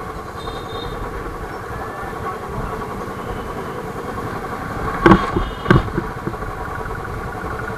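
Royal Enfield Bullet 350's single-cylinder engine running steadily under way, with two sharp knocks about five seconds in, half a second apart.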